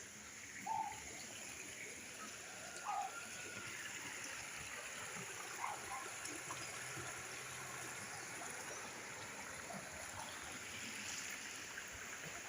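Flowing stream water, a steady rushing, with a few short bird chirps in the first half.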